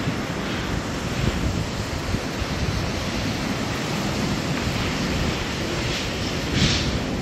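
Strong wind buffeting the microphone: a steady rushing noise with a gusty low rumble, and a brief louder hiss near the end.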